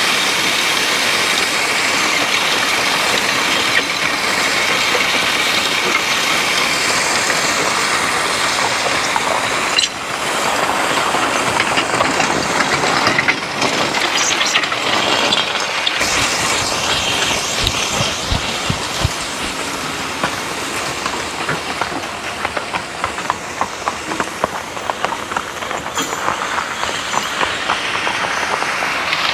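Steel spring-tooth harrow dragged over freshly spread crusher-run gravel, its teeth scraping and rattling through the stone in a steady grind. It is loud and close at first, then fainter and more uneven with scattered clicks in the later part.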